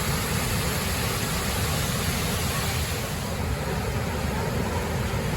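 Loud, steady rush of a waterfall heard close up.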